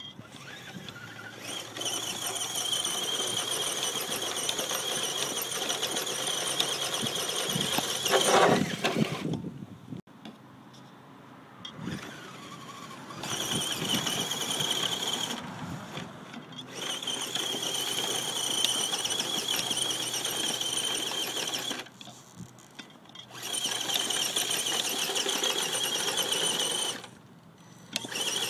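Axial SCX10 RC crawler's drivetrain, a Holmes Hobbies 35-turn brushed motor through hardened steel transmission gears, whining high-pitched under load as it climbs a dirt slope. It stops and starts several times, with a louder, lower burst of noise about eight seconds in.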